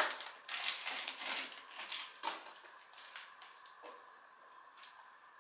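Small clear plastic bag of Playmobil parts crinkling and being opened by hand, with small plastic toy pieces clicking against each other. The crackling is densest for the first three seconds, then thins to a few faint clicks.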